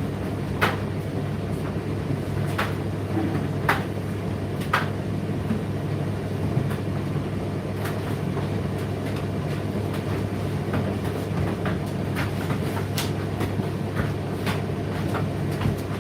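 Indesit IDC8T3 condenser tumble dryer running mid-cycle: a steady motor and drum hum with sharp clicks and taps of the tumbling load. The taps come about once a second for the first few seconds, then fainter and more scattered.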